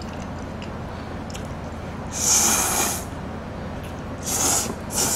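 A person slurping spicy instant stir-fried noodles: three loud, hissing slurps, the first about two seconds in and the longest, the last two close together near the end, over a steady low hum.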